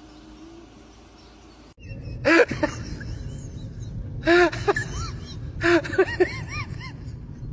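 After a faint hum and a sudden cut about two seconds in, an animal gives short, high whining cries, each rising and falling in pitch, in three bursts.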